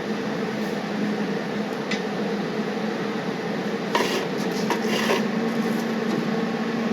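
Brazing torch flame hissing steadily while the work is heated, with a few light metallic clinks of the brazing rod and tools against the steel clamp and nut.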